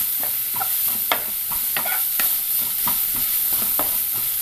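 Chopped onion and green chilli sautéing in hot coconut oil in a nonstick pan: a steady sizzle with a wooden spatula scraping and stirring about twice a second.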